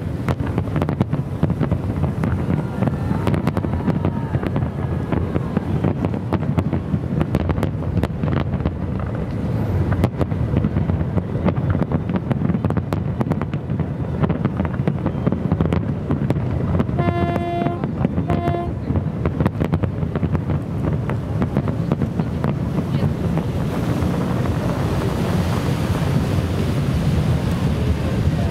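Fireworks display heard from a distance: many sharp bangs and crackles over a steady low rumble of wind on the microphone. About 17 seconds in, a horn sounds twice, a longer blast and then a short one.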